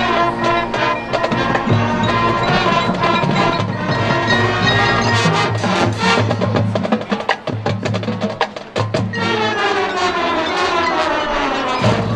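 High school marching band playing its field show: sustained brass and woodwind chords over drumline and front-ensemble percussion, with a dense run of sharp percussion strokes in the middle.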